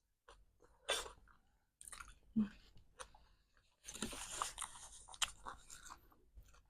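Close-miked chewing of momos with chili: irregular wet mouth and chewing noises with sharp little clicks, busiest about four seconds in.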